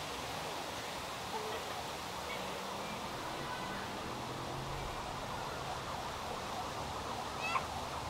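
Steady outdoor hiss with faint, distant voices of people, and a short high chirp near the end.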